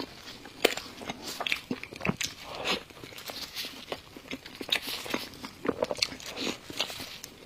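Close-miked biting and chewing of crunchy food, with many sharp crackling crunches at irregular intervals.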